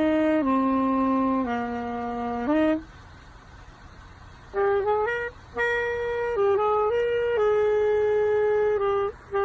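A woodwind instrument playing a slow melody of held notes, first stepping down in pitch, then a pause of about two seconds, then another phrase of held notes.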